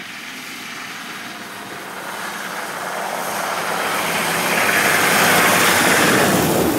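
Nissan Patrol 4x4 driving past on a muddy, slushy track, its engine and tyres growing steadily louder as it nears and passes close by, then cutting off suddenly at the end.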